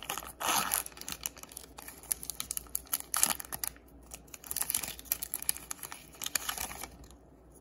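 A Pokémon card booster pack's foil wrapper being torn open and crinkled by hand, in irregular crackling bursts that thin out near the end.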